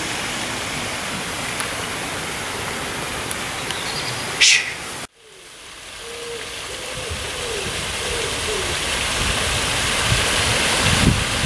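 Steady outdoor hiss of rain and running fountain water. About four and a half seconds in there is a short, loud, high hiss, then the sound cuts to near quiet and the water noise fades back in. Wind knocks on the microphone near the end.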